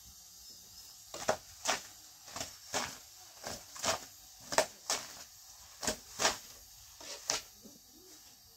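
Thin wooden rolling pin knocking and clacking against a round wooden board as thin flatbread dough is rolled out around it: a dozen or so sharp taps, roughly two a second, stopping near the end.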